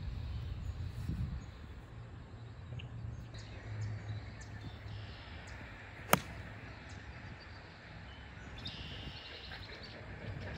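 A single sharp crack of a 56-degree wedge striking a golf ball off the tee, about six seconds in, over faint outdoor background.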